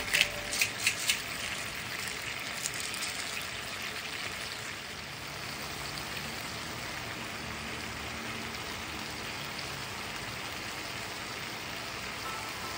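Beef and carrot stew simmering in a nonstick pan: a steady bubbling hiss, with a few sharp clicks in the first second.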